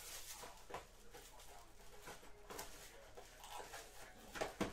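Cardboard trading-card box being handled and opened by hand: faint rustling and light tapping of the card stock, with one louder knock near the end.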